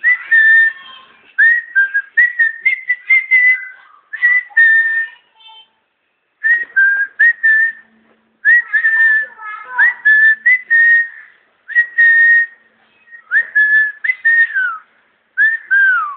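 Someone whistling in short bursts of notes and slides around one pitch, with brief pauses between phrases; the last two notes slide down in pitch.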